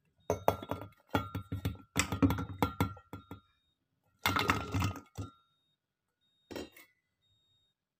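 Shallots, garlic and chillies tipped from a stainless steel bowl into a glass blender jar, knocking and clinking against the glass in several bursts of clatter with short pauses between them.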